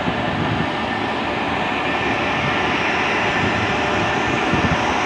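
Freight train hauled by an electric locomotive passing close below: a steady noise of the locomotive and wheels on the rails, growing slightly louder.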